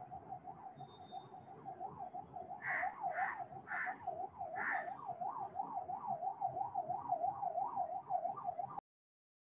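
An emergency-vehicle siren wails, quickly rising and falling about two to three times a second. Four short, higher sounds come over it a few seconds in. The sound cuts off suddenly near the end.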